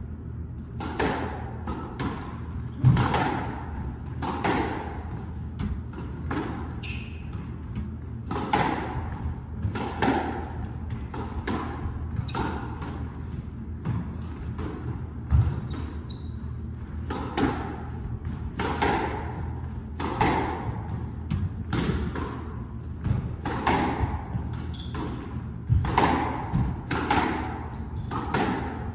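Squash rally in a reverberant court: the ball smacking off rackets and walls, a sharp hit about every second, over a steady low hum.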